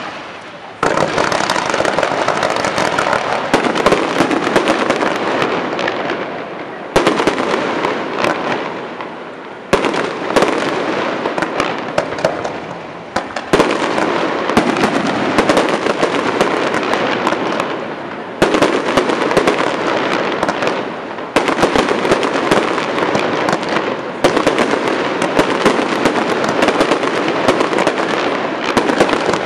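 Aerial fireworks display: a dense, continuous crackle and popping of bursting shells, with fresh volleys breaking in suddenly every few seconds.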